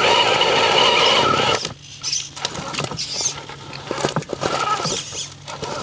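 Axial RR10 Bomber RC rock crawler's electric motor and drivetrain whining under throttle for about the first two seconds. After that the whine drops away, leaving scattered clicks and knocks as the tyres and chassis work over the rock.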